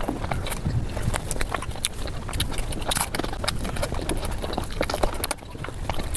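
Close-miked eating sounds played at five times speed: a fast, irregular stream of wet chewing and mouth clicks.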